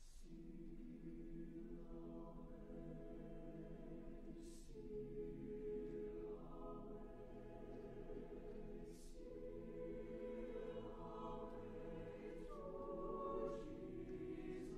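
Mixed choir singing soft, sustained chords, with hissing 's' consonants sung together about every four and a half seconds.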